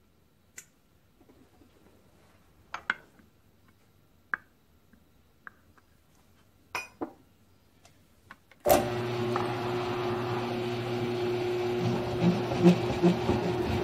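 Scattered light clicks and taps as chips are brushed off a milling vise and tools are set down; about nine seconds in, the Grizzly G1007 milling machine's motor switches on and runs with a steady hum, the adjustable boring head spinning, with a few soft bumps near the end.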